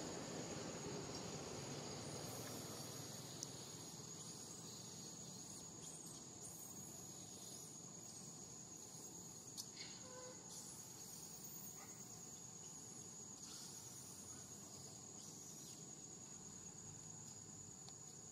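Faint steady high-pitched insect trill, with a few soft clicks.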